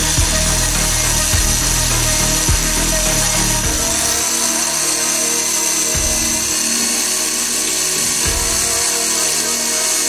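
Background music with a steady beat over a power drill running, its bit boring into the steel core of a microwave oven transformer.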